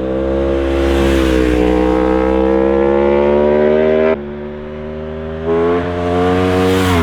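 Aprilia Tuono V4 1100 Factory's V4 engine running under load, its pitch climbing steadily. About four seconds in the sound drops suddenly in level, comes back up a second and a half later, and near the end the pitch dips briefly and climbs again.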